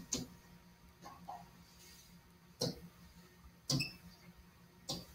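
A few faint ticks, then three sharp taps about a second apart: a pen stylus tapping the screen while writing by hand.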